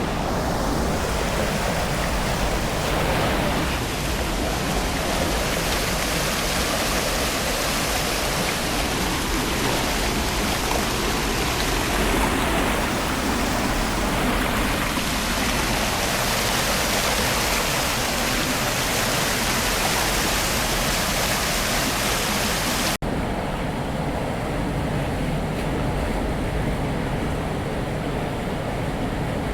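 River water rushing and flowing steadily over a stream bed. About three-quarters of the way through it cuts off suddenly and picks up again as a duller rush with less hiss.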